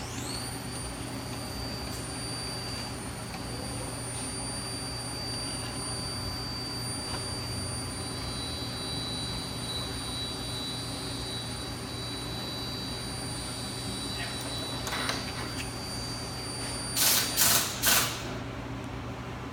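A milling machine's motor running with a steady high whine that rises quickly at the start and cuts off near the end, over a constant low shop hum, followed by three quick knocks.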